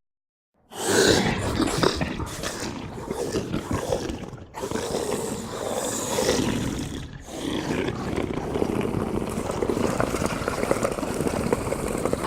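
Monster growl sound effect: deep, rough growling and roaring that starts about a second in and runs in three long stretches, with short breaks about four and a half and seven seconds in.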